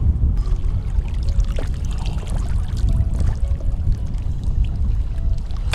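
Water splashing and sloshing over a steady low rumble of wind on the microphone.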